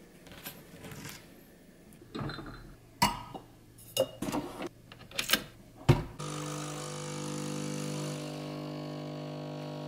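Light clicks, scrapes and knocks of breakfast handling, ending in a sharp clack about six seconds in. Then a capsule espresso machine's pump starts and hums steadily as the coffee pours.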